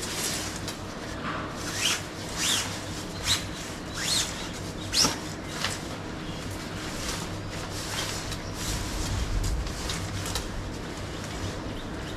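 Tent fabric rustling and swishing in a run of short strokes as the tent is handled and its parts are fitted together, busiest in the first half and quieter after.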